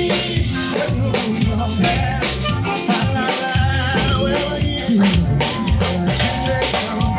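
Live band playing an upbeat song, with a drum kit keeping a steady beat under a busy bass line and a wavering melody.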